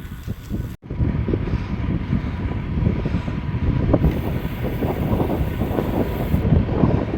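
Wind buffeting the microphone of a camera on a moving road bike, with road rumble underneath: a loud, gusty rumble that cuts out for an instant about a second in, then carries on.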